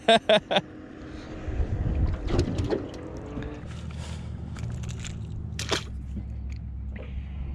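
A brief exclamation at the start, then scattered knocks, clicks and rustles of a small flathead and its vibe lure being handled on the line beside an aluminium boat, with one sharp click near the end, over a steady low rumble.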